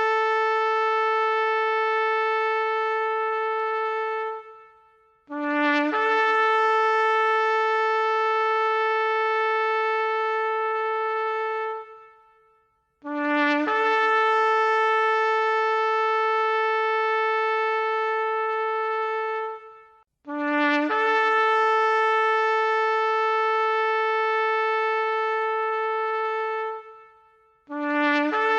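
Shofar (ram's horn) sounding a series of long blasts, each opening with a brief lower note that leaps up to a held higher note lasting about six or seven seconds, with short gaps between. One blast is dying away at the start, three full ones follow, and another begins near the end.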